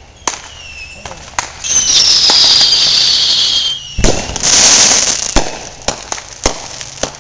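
Fireworks going off: a few sharp bangs, then a loud whistle falling in pitch for about two seconds. About four seconds in comes a loud bang and a hissing burst, followed by scattered firecracker pops.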